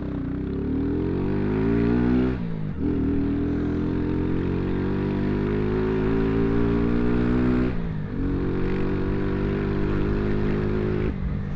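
150 cc motorcycle accelerating up through the gears, its engine pitch rising, dropping at an upshift about two seconds in, rising again, dropping at a second shift near eight seconds, then running steadier. The exhaust is loud.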